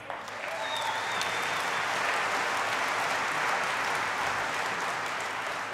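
Large audience applauding, the clapping swelling up over the first second, holding steady, and easing slightly near the end.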